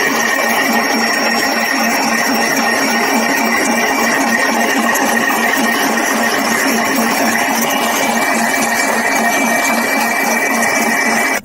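Electric stand mixer running steadily at speed, its beater whipping butter into meringue to make Swiss meringue buttercream. A steady motor whine with an even pulsing from the turning beater.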